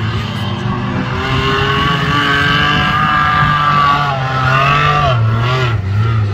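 Off-road 4x4 engines revving hard under load on a steep muddy climb, the engine note rising and falling several times.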